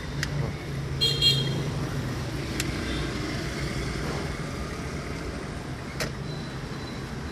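Steady engine and road noise inside a moving car. About a second in there is a short, loud, high-pitched clattering chirp, and later come a couple of single sharp clicks.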